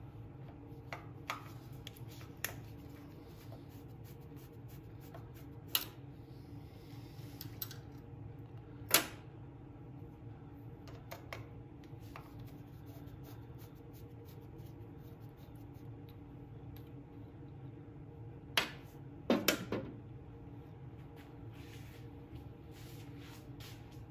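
Scattered metal clicks and taps of a screwdriver and small parts being handled on the breaker points of a Briggs & Stratton engine, over a steady low hum. The sharpest knocks come at about 6 and 9 seconds, and a quick cluster comes near 19 seconds.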